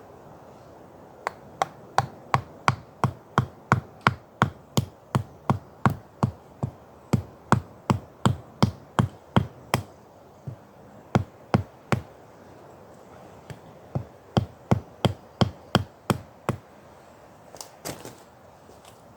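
Repeated sharp blows of a hand tool on wood, about three a second: a long run of some thirty strikes, a pause of about two seconds, then a shorter run of about eight, and two lighter knocks near the end.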